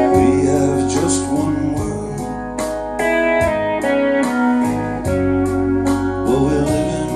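Recorded rock music with a lead electric guitar over a steady soft drum beat, played back through loudspeakers driven by a BRZHIFI T300 Class AB monoblock power amplifier.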